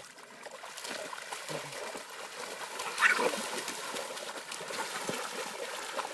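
Coon dogs and a raccoon scuffling and splashing in shallow water. There is one brief, louder animal cry about three seconds in.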